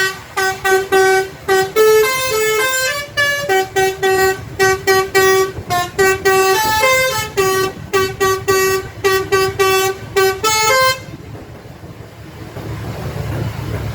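Bus 'basuri' telolet horn playing a fast tune of short, clipped notes that stops about 11 seconds in. After it the bus engine rumbles, getting louder near the end.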